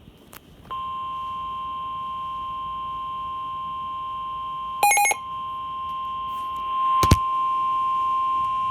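NOAA Weather Radio warning alarm tone: a single steady 1050 Hz beep held for several seconds ahead of an emergency alert, the signal that a warning message follows. It is briefly broken about five seconds in by a short chirp of other tones, and a sharp click comes about two seconds later.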